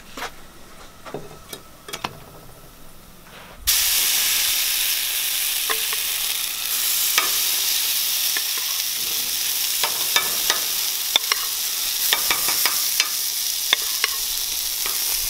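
Waffle batter sizzling on a hot cast iron waffle iron, starting suddenly about four seconds in as a loud, steady hiss with scattered pops and crackles. Before that there are only a few light clicks and knocks.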